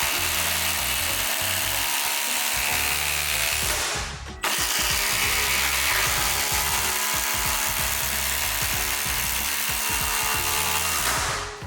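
Milwaukee M18 Fuel 2953 cordless impact driver hammering GRK RSS structural screws into OSB at full speed. One drive of about four seconds, a brief pause, then a second, longer drive of about seven seconds.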